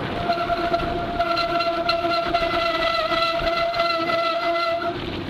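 Bicycle disc brakes howling under steady braking: one sustained pitched tone with overtones that wavers slightly and cuts out near the end, over rolling tyre and wind noise. These are brakes the rider calls an embarrassment.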